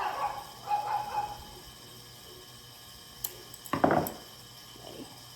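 Scissors snipping, a few sharp clicks followed by a short crunchy cut, as corners of the covering material on a light switch plate are trimmed. The steady hum of a heating and cooling fan runs underneath.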